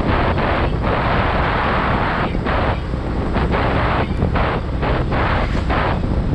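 Wind buffeting the microphone of a camera on a moving motorcycle, a loud rushing noise over a deep rumble of riding noise. The rushing keeps dropping out for an instant and coming back, several times a second.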